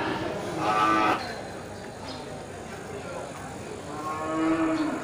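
Cattle mooing twice: a short moo about a second in, then a longer one near the end that drops a little in pitch as it fades.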